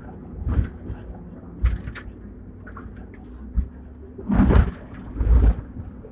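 Hong Kong double-decker tram No. 120, a fifth-generation car with a British mechanical controller, heard from beside the driver's cab while running: a steady low hum broken by several sudden heavy knocks and clatters, the two loudest and longest about four and a half and five and a half seconds in.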